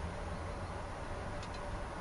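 Steady background noise with a faint hum, and two faint ticks about one and a half seconds in.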